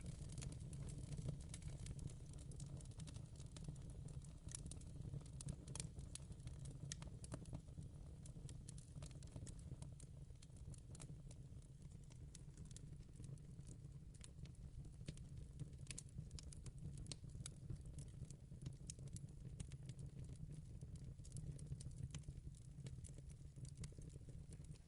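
Wood fire in a fireplace crackling gently: irregular sharp pops and snaps over a steady low rumble.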